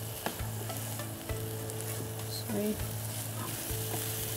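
A curry of dried fish, potato and eggplant sizzling in a frying pan on a gas burner as a wooden spatula stirs it, knocking against the pan a few times.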